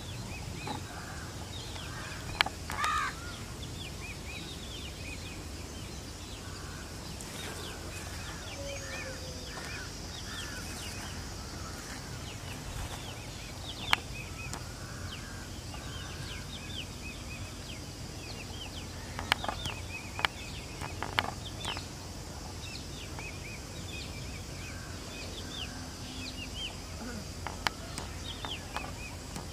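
Outdoor ambience of many small birds chirping over a steady low rumble, with a crow cawing once about three seconds in and a few sharp clicks scattered through the middle and near the end.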